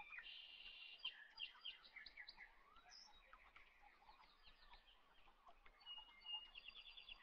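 Faint birds chirping and trilling in the background, with short repeated calls throughout and a quick trill near the end.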